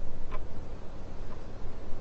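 Steady low rumble of a train ride, with a short, light tick about once a second, the second one weaker.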